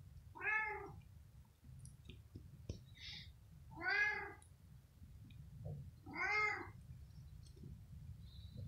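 A cat meowing three times, about two and a half seconds apart, each meow rising and then falling in pitch.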